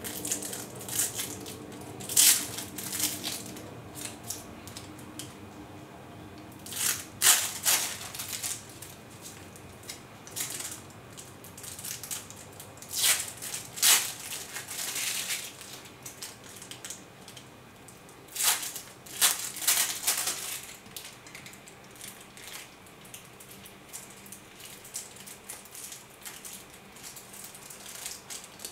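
Crab sticks being handled and cut up by hand: irregular bursts of crinkling and snipping, some short, some lasting about a second, with quieter handling in between.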